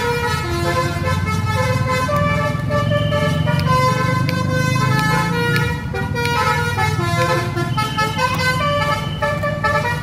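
A bus's basuri musical horn playing a melody: held notes that step from pitch to pitch, over the steady low running of the bus's engine.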